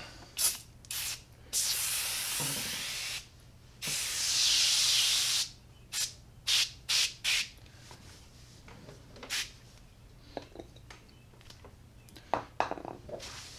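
Aerosol can of Griot's Garage Foaming Tire Cleaner spraying foam onto a tire: two long hissing sprays of about a second and a half each, among several short puffs.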